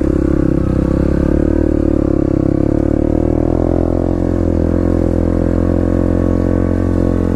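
Dirt bike engine running at low revs while ridden slowly, its pitch rising a little over the first few seconds and then holding steady.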